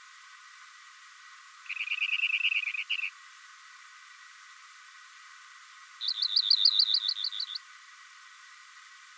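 Rock wren singing: two rapid trilled phrases, a lower one about two seconds in and a higher, louder one about six seconds in, each lasting about a second and a half.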